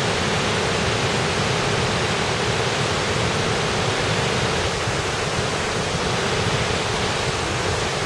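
Waterfall pouring in several wide strands over a rock ledge into its plunge pool: a steady, unbroken rush of falling water.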